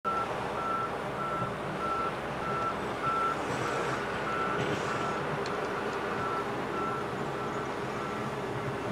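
Hi-rail excavator's travel alarm beeping steadily, a single tone repeating just under twice a second, over its engine running as it travels along the track.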